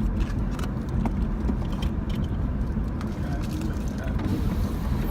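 Steady low road and engine rumble of a moving vehicle, heard from inside the cabin.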